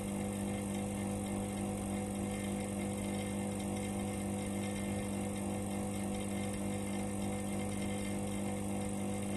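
Vacuum pump on a lab-scale sigma (Z-blade) kneader running steadily, a constant electric hum with a strong low tone, holding the mixing chamber at about −0.09 MPa vacuum.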